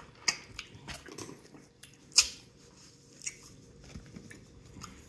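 Close-miked chewing of fried food, a string of sharp crunches and wet mouth clicks, the loudest crunch about two seconds in.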